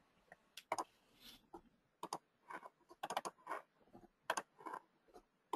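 Faint, irregular typing on a computer keyboard: scattered keystroke clicks, a few a second, with short pauses between runs.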